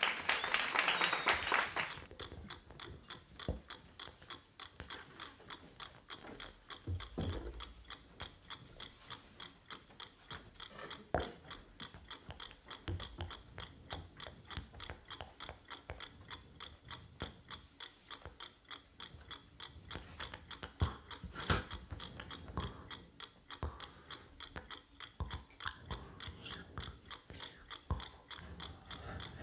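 Brief applause, then the rapid, steady ticking of a mechanical chess clock, broken by a few soft thumps.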